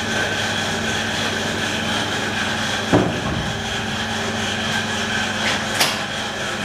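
A steady mechanical hum, with a knock about three seconds in and a sharp click near the end.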